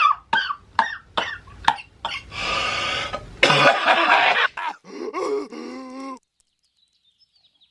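A man in a coughing fit: a quick run of short hacking coughs about two or three a second, then two long harsh rasping coughs, then a drawn-out voiced groan that trails off.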